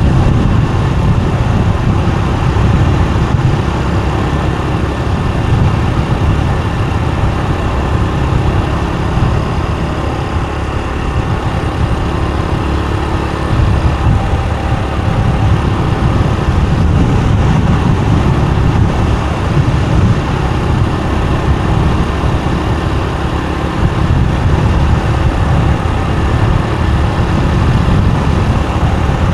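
Motorbike riding at road speed: engine and road noise under a heavy, irregular rumble of wind buffeting the microphone.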